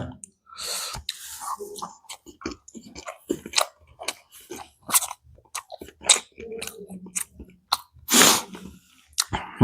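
Close-miked chewing of a soft steamed veg momo with soybean stuffing: a run of wet mouth clicks and smacks, with a louder breathy burst about eight seconds in.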